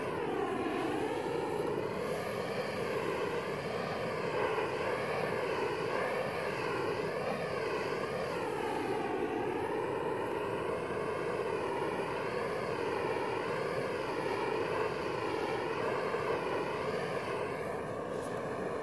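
Handheld propane torch burning with a steady rushing hiss, its tone wavering slowly as the flame is swept over the end of a polyethylene hose to soften it for a barbed fitting.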